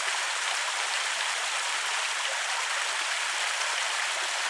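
Water running steadily over a small creek waterfall, an even rushing splash.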